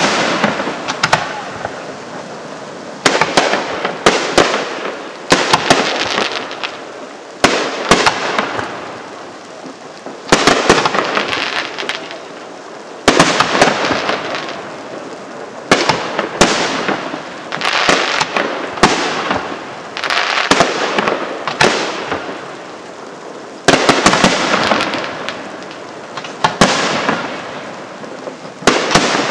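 Aerial firework shells bursting in succession, roughly one every one to three seconds, each sharp bang trailing off into a fading crackle.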